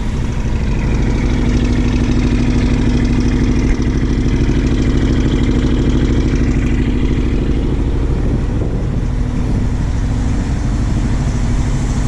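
Chevrolet 366 big-block V8 of a 1982 Blue Bird school bus idling steadily while warming up, its throttle set out a little for a fast idle.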